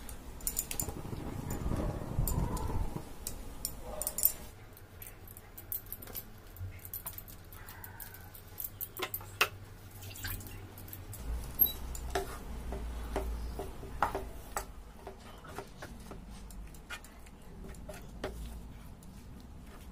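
Boiled macaroni being tipped into a non-stick frying pan of vegetables and then stirred with a wooden spatula: a soft rumble of handling at first, then scattered light taps and scrapes of the spatula against the pan.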